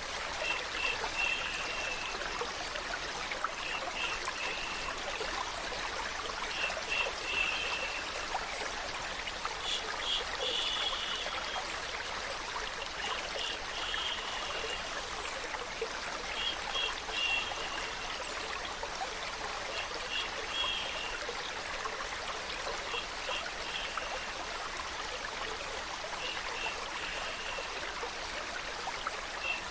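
Steady flowing water, a stream trickling, with short high chirps that recur in small clusters every few seconds.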